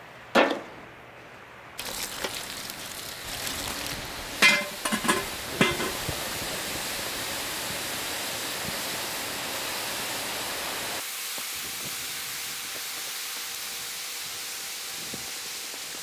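Burnt shells, now quicklime, hissing and sizzling steadily as water slakes them, with a few louder pops around five seconds in. About eleven seconds in the sound cuts to a softer, thinner hiss.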